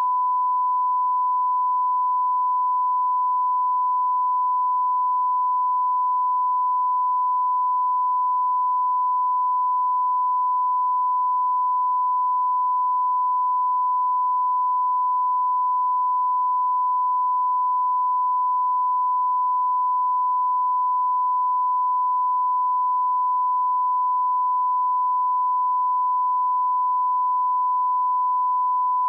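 Broadcast bars-and-tone test signal: a steady, unbroken 1 kHz reference tone, one pure pitch at a constant level.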